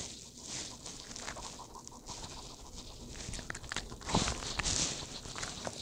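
Small dog sniffing and eating raw vegetables from a bowl, with hissy sniffs and crunchy chewing clicks. The loudest crunching comes about four seconds in.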